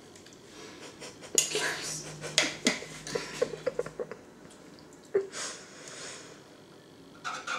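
A metal spoon clinking and scraping against a small ceramic ramekin while scooping pesto, with a quick run of light taps in the middle and another knock a couple of seconds later.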